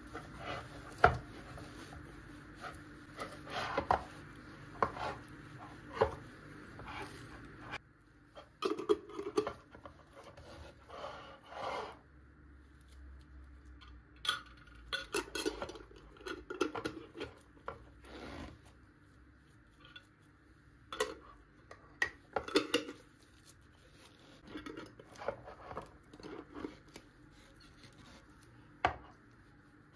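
Glass jars packed with red cabbage being handled and capped: irregular sharp clinks and knocks of glass, and metal twist-off lids being screwed on, with rubbing and scraping in between.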